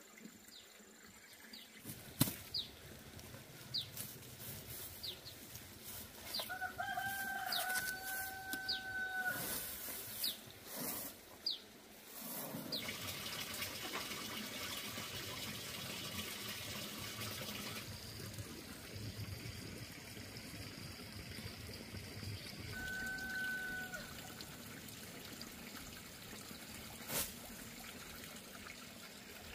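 A rooster crowing: one long crow about seven seconds in, rising at its start and then held, and a shorter crow later. Small birds chirp in the background, and a steady hiss comes in for a few seconds after the long crow.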